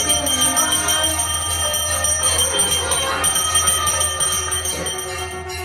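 Temple bells ringing continuously during a puja, a fast run of clapper strokes over sustained metallic ringing, with a steady low hum underneath.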